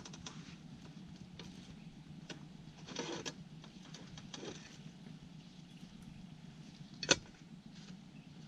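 Banana leaves rustling as they are folded over pork belly, with a sharp click about seven seconds in, over a steady low hum.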